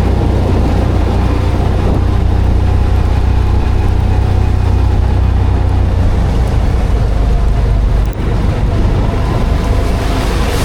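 A motor vehicle's engine running steadily with a low, continuous rumble. It dips and shifts briefly about eight seconds in.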